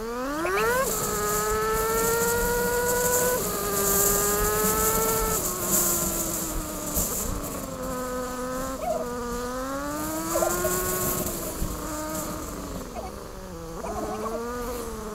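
Small motorcycle engine accelerating with a high buzzing note: the revs climb steeply in the first second, then the pitch drops in steps at gear changes and rises and falls with the throttle.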